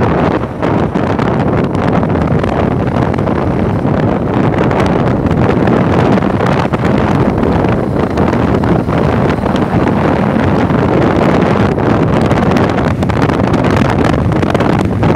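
Loud, steady rush of wind on the microphone from a moving vehicle, mixed with road noise.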